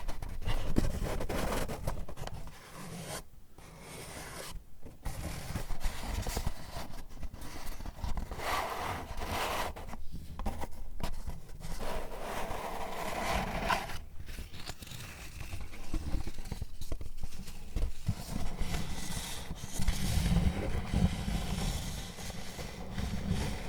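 Paper packaging handled close to the microphone: irregular scraping, rustling and tearing, broken by short pauses.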